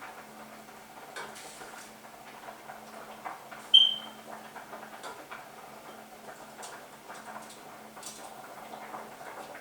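Kitchen utensils clinking and scraping against a cooking pot while cooked sweet potato leaves are lifted out, with one sharp, ringing metal clink about four seconds in, over a faint steady hum.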